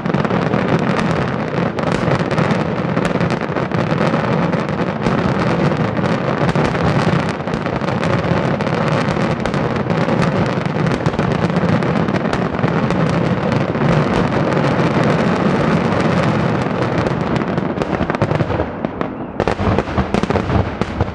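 Daytime fireworks going off in a dense, unbroken barrage of bangs and crackling. It thins out near the end to a few last separate bangs and fades.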